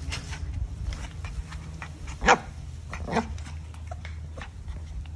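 Puppies play-fighting, with one loud sharp yap about two seconds in and a weaker one a second later, over small scuffling clicks.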